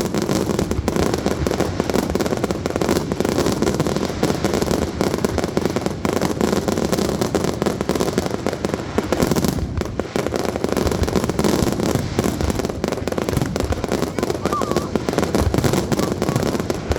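Fireworks display going off in a dense, continuous barrage of rapid bangs and crackling, with no let-up.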